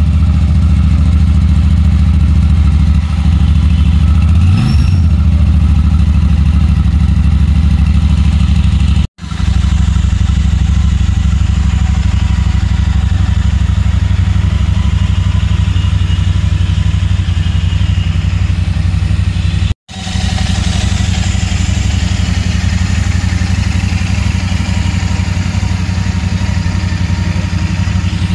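Royal Enfield Super Meteor 650's parallel-twin engine idling steadily through its dual exhaust just after starting, with a brief slight rise in pitch about five seconds in. The sound breaks off for an instant twice.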